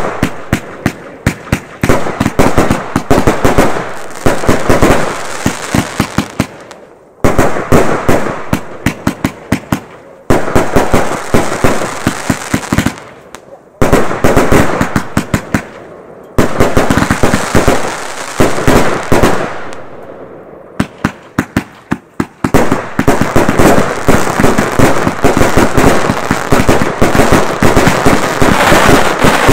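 Consumer aerial fireworks bursting overhead: volleys of sharp bangs followed by dense crackling from the stars, each wave dying away before the next kicks in, and a steady barrage of pops over the last seven seconds or so.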